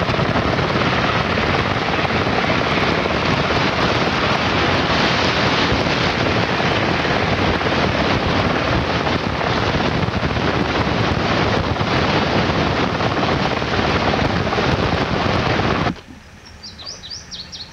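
A loud, steady rushing noise with no clear tone cuts off abruptly near the end, leaving a few faint bird chirps.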